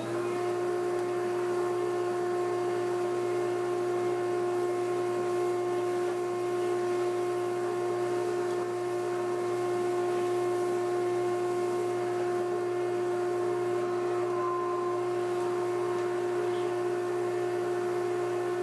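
Shop vacuum running steadily with a constant whine, its hose sucking sawdust off a freshly carved MDF board.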